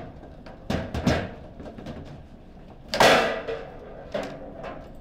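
Table football play: sharp knocks and clacks of the ball being struck by the rod figures and hitting the table, four or so in all, the loudest bang about three seconds in.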